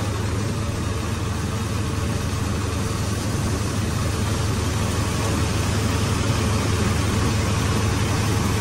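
Tractor-driven multicrop thresher running steadily while threshing soybean plants: a constant low hum from the drive under an even rushing hiss from the threshing drum and fan.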